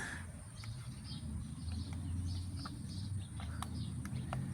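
Small birds chirping over and over in the background, with a few faint clicks from handling.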